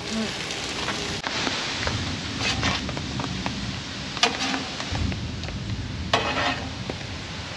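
Stir-fry vegetables sizzling on a Blackstone tabletop steel griddle, with a metal spatula scraping across the griddle surface in several short strokes as the food is scooped into a bowl, over a steady hiss.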